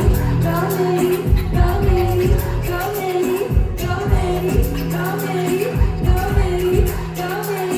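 Live R&B band music played loud through a concert hall's PA: a short melodic phrase repeats over and over above a steady bass line, with regular kick drum hits and cymbal ticks.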